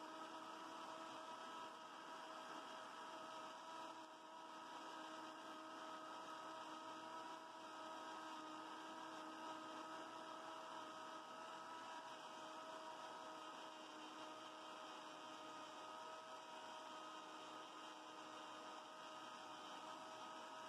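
Near silence: only a faint, steady electrical-sounding hum with a few constant tones in it. The running blender seen in the picture is not heard.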